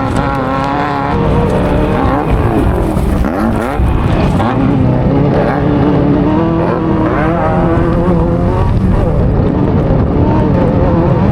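Off-road race vehicle's engine heard onboard at racing speed, its revs rising and falling with the throttle over a heavy low rumble. The revs drop sharply about three seconds in and climb back.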